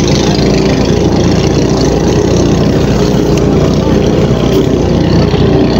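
Steady, loud drone of a ship's machinery running, with the even hiss of a fire hose jet spraying water.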